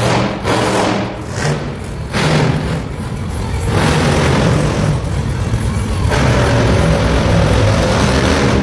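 Music over the PA mixed with a monster truck's engine running, with several sharp blasts from the show's pyrotechnics in the first two seconds.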